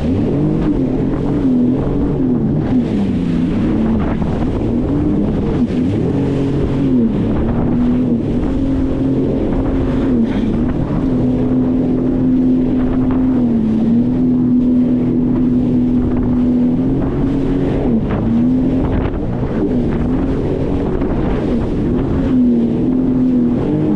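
Sea-Doo FishPro Sport 170 personal watercraft engine running underway. Its pitch dips and climbs again several times as the throttle changes, with a steady stretch in the middle. Wind blows on the microphone over the engine.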